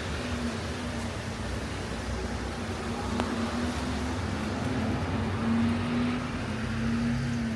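Wet city street: a steady hiss of rain and traffic, with a vehicle's low engine hum that grows louder in the second half. A single light click about three seconds in.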